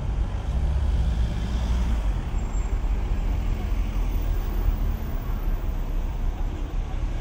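Busy city road traffic: cars moving slowly past close by, a steady low rumble of engines and tyres.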